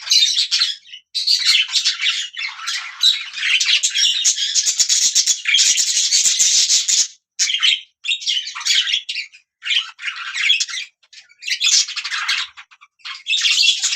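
Budgerigars chirping and chattering: dense runs of warbling and squawky calls broken by short pauses.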